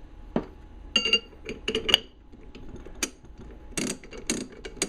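Small steel parts of a Snap-on ratchet head clicking and clinking as it is handled during reassembly, with its newly oiled gear and pawl in place. The clicks are sharp and irregular: a cluster about a second in, some with a brief metallic ring, then a few more spread toward the end.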